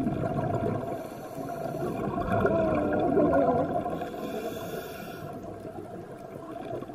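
Scuba diver's regulator heard underwater: a burble of exhaled bubbles about two seconds in, then a hiss of inhaled air around the middle, over a steady underwater background.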